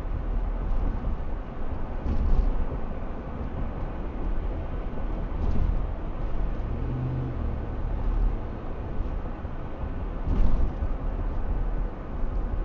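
Road and engine noise inside a 2008 Ford F-150's cab cruising at about 45 mph: a steady low rumble, with a few brief louder bumps about two, five and ten seconds in.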